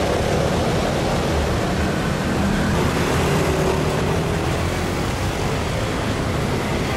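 Busy city street traffic: a steady wash of cars and motorbikes going past.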